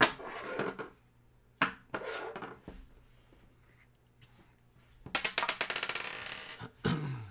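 A die thrown onto a wooden desk, clattering and rolling. There are three sharp bursts of clatter; the last is a fast rattle lasting nearly two seconds that ends in a wobble falling in pitch as the die settles.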